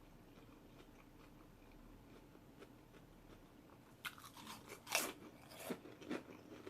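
A person biting into and chewing a Subway sub sandwich up close. Only faint mouth clicks for the first few seconds, then crisp crunching bites from about four seconds in.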